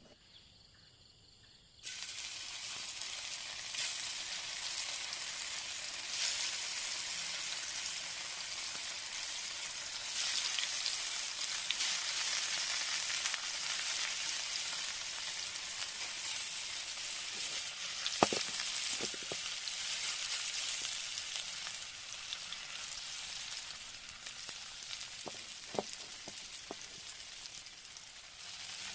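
Food sizzling in hot oil in a pan, starting suddenly about two seconds in and running on steadily, with a few light knocks later on.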